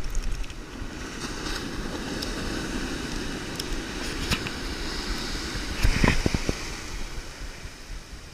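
Ocean surf washing and foaming around the angler's legs, with wind buffeting the microphone. About six seconds in, a short cluster of knocks and bumps stands out over the wash.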